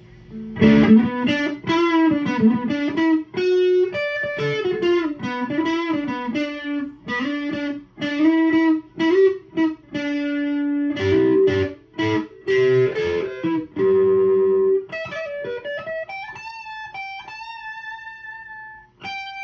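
Electric guitar, a Fender Player Telecaster on its Seymour Duncan neck pickup, played through an amp: quickly picked single-note lead lines, then a note bent upward and a few long held notes near the end. A warm tone with more of a P90-type sound than a standard Telecaster.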